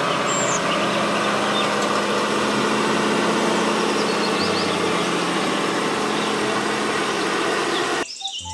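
Heavy three-axle dump truck's diesel engine running steadily under load as the truck climbs a steep sand slope. The sound cuts off abruptly near the end.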